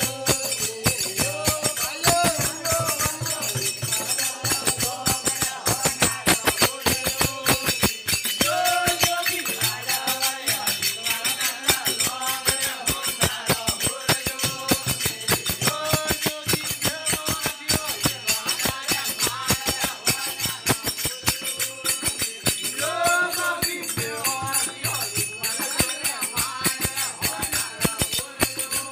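Rajasthani desi bhajan: singing over a desi veena, with jingling hand percussion keeping a fast, steady beat.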